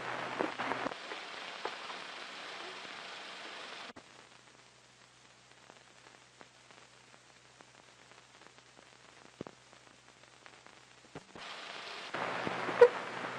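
Steady hiss and faint crackle of an old film soundtrack with a faint low hum. About four seconds in it drops abruptly to near silence with scattered faint pops, and the hiss comes back in two steps near the end.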